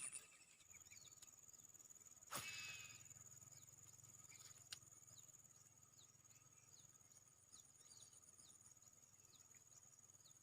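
Insects trilling steadily at a high pitch, one of them pulsing, with faint short falling chirps scattered throughout. A single sharp click with a brief rush of noise comes a little over two seconds in, and a smaller click near the middle.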